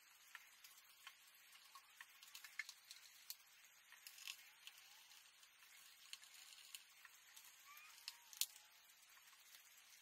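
Faint, scattered small ticks and clicks of a small screwdriver turning tiny screws into a MacBook Pro's aluminium bottom case, with one sharper click about eight seconds in.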